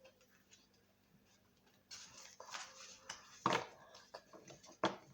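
Pokémon trading cards being handled and flipped through by hand: quiet at first, then from about two seconds in a run of short rustles and snaps, the sharpest about three and a half and five seconds in.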